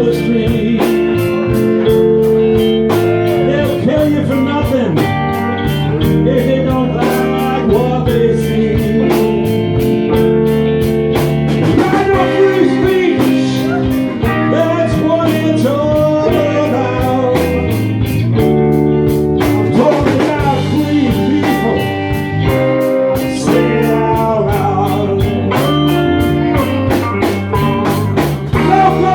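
Blues band playing live, with electric guitar and a drum kit keeping a steady beat, and a voice singing at times.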